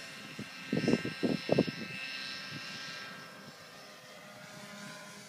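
Stingray collective-pitch 3D quadcopter in flight, its rotors and drive giving a steady high whine made of several tones, fading a little as it flies farther away. A few loud low thuds come through about a second in.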